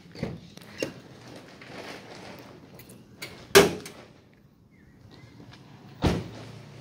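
Several sharp clunks and knocks of a car's latches and body panels, the loudest about halfway through, as the hood of a 2007 Hyundai Avega is released and opened.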